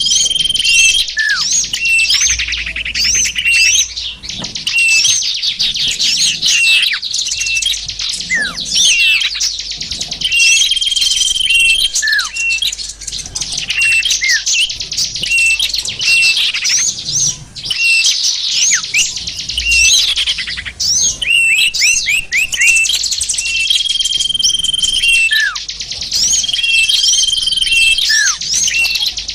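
Bird lure recording of many small songbirds calling at once: dense, overlapping chirps, trills and whistles, with a short held whistle and brief falling calls that keep coming back every several seconds, as in a looped mix.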